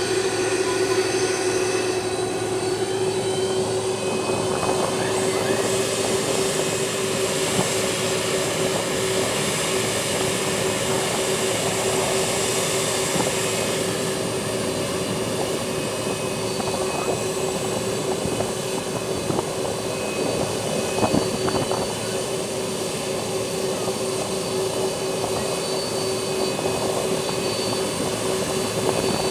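Boeing 747's four jet engines running at low power as it taxis: a steady jet whine and rush with a constant drone.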